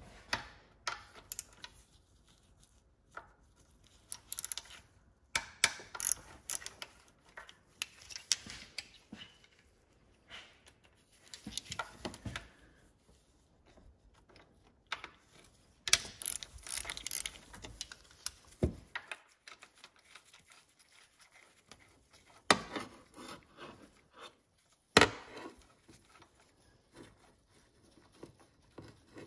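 Hand tools undoing a nut and bolt on a car engine: bursts of rasping clicks and scraping, with a few sharp metal clinks and knocks in between.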